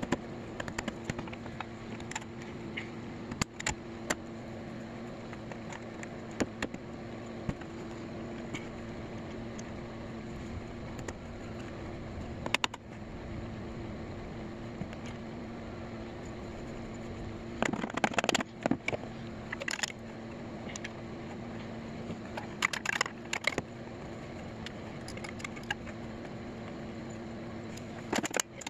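Vehicle engine droning steadily heard from inside the cab while driving, with scattered clicks and rattles and a louder burst of rattling about 18 seconds in.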